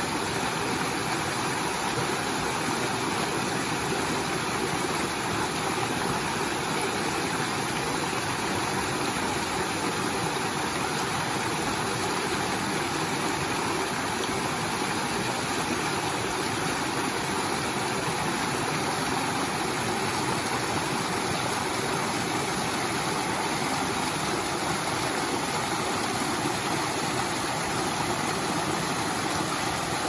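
Small woodland stream cascading over mossy rocks in a string of little falls: a steady rush of water.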